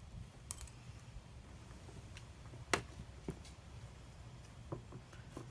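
Plastic retail packaging of a trail camera clicking and crackling as the camera is worked loose and pulled out: a few separate sharp clicks, the loudest about two and three-quarter seconds in.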